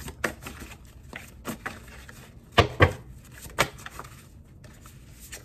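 Tarot cards being handled and laid down: a scatter of light taps and clicks, with two louder snaps close together about two and a half seconds in and another a second later.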